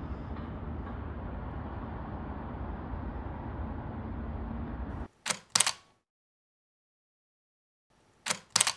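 Camera shutter clicking as a sharp double click, twice, about three seconds apart, with silence between. Before it, steady low background noise cuts off suddenly about five seconds in.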